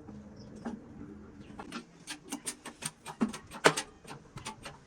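Irregular sharp clicks and ticks, a few a second, from the tooling while a new half-shaft bearing is pressed into its housing; the loudest click comes about three-quarters of the way through.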